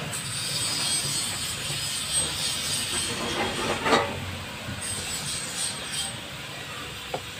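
Steady hissing and sizzling of food cooking on a gas stove, with a brief clatter about four seconds in.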